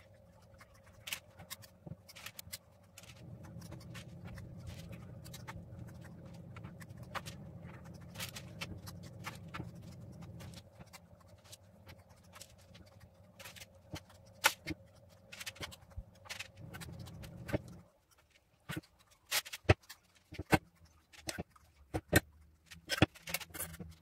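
Metal spoons clinking and scraping against a steel pot and against each other while scooping sticky choux pastry dough, in irregular sharp clicks. A steady low hum runs underneath and cuts off suddenly about three-quarters of the way through.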